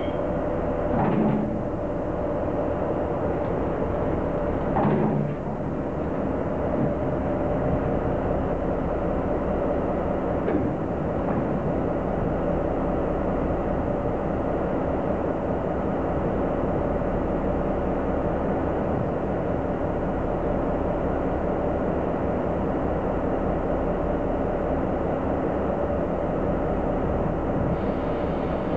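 SNCF BB 75000-class diesel locomotive's engine running steadily while the locomotive turns on a roundhouse turntable. Two brief louder noises come about a second in and about five seconds in.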